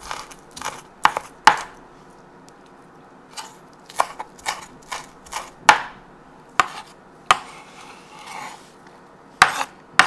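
Chef's knife chopping spring onions on a wooden cutting board: irregular sharp knocks of the blade on the board, coming in quick runs with short pauses between them.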